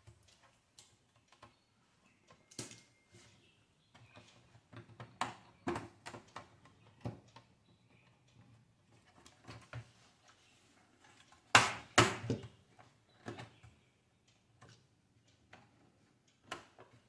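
Scattered clicks, taps and knocks from handling and working at a laptop's plastic back panel while trying to get it open, with two louder knocks close together about two-thirds of the way through.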